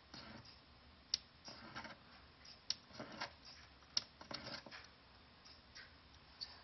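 A piece of silver being rubbed on a black touchstone to leave test streaks: a few short scraping strokes, with several sharp clicks of metal and stone being handled.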